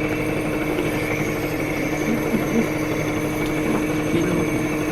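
High-frequency chest wall oscillation vest (pulmonary airway clearance vest) running: its air-pulse generator makes a steady mechanical hum that shakes the chest to loosen mucus.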